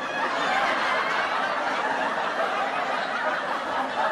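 An audience laughing together after a punchline: a dense, steady wash of many voices laughing at once.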